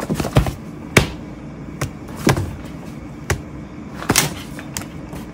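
Sharp slaps on a paper notebook lying on a desk, from a hand and a cat's paw, about eight in all at irregular spacing, some in quick pairs. A steady low hum runs underneath.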